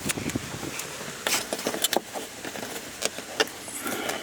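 Irregular sharp clicks and small knocks of hard dashboard plastic trim being handled and worked loose by hand.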